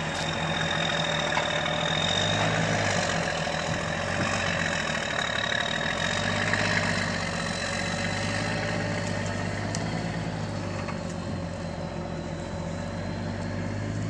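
Diesel engine of a cane truck loaded with sugarcane and towing a loaded cane trailer, running steadily at low revs as it pulls slowly across the field. A thin high whine sits above the engine.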